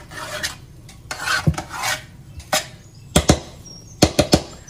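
Metal spoon scraping and pressing crumbly semolina dough into a metal baking pan: short rubbing strokes, then a run of sharp taps of the spoon on the pan, several in quick pairs and threes in the second half.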